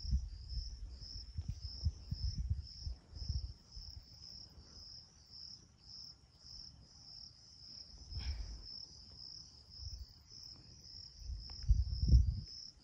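An insect chirping high and steadily in even pulses, about three a second. Low rumbling bumps on the microphone come and go, the strongest near the end.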